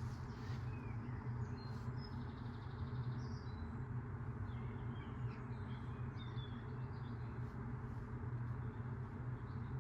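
Washing machine running steadily, a low even hum of its motor and turning drum, with small birds chirping over it.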